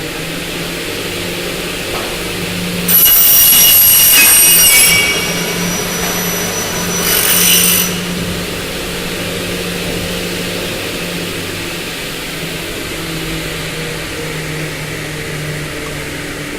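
Fentek 08S double-head aluminium cutting saw running, its square motors humming steadily. About three seconds in, a blade cuts through a 2 mm thick Xingfa aluminium profile with a loud, high-pitched screech lasting about two seconds, and a second, shorter cut follows around seven seconds in; the motors then run on smoothly.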